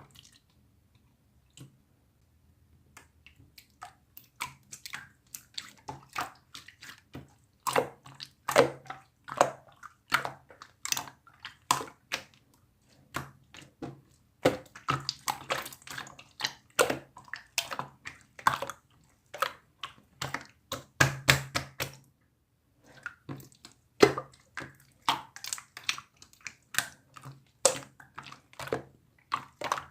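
Hands squishing and pressing slime, making irregular wet clicks and pops. It starts faint after a few quiet seconds, grows busier, and pauses briefly about two-thirds of the way through.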